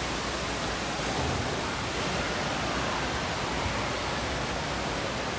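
Steady, even rushing noise of an indoor water park's running water, from its slides, fountains and wave pool.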